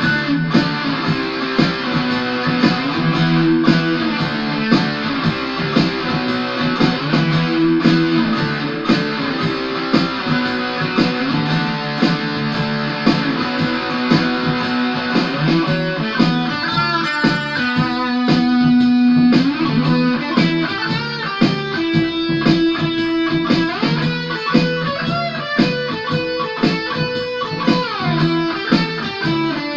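Ibanez AS73 semi-hollow electric guitar, amplified, playing single-note lead lines in the key of E over held low chords. The lines get faster and busier about halfway through.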